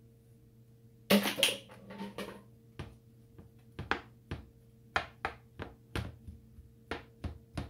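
Wooden slotted spatula stirring chopped chicken into broth and vegetables in a copper-coloured frying pan. There is a louder scraping burst about a second in, then sharp knocks of the wood against the pan, about two a second.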